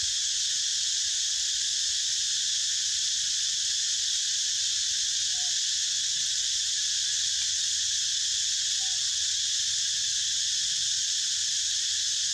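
Steady, high-pitched chorus of insects that keeps going without a break.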